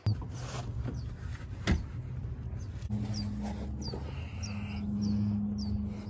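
A steady low hum with a droning tone joining about three seconds in, one sharp knock about a second and a half in, and birds chirping in short repeated calls.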